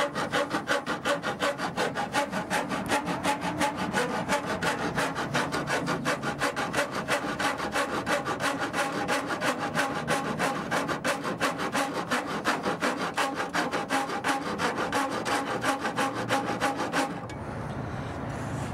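Half-inch rat-tail rasp filing a clearance notch into the plastic grille, with quick, even back-and-forth strokes that stop about a second and a half before the end.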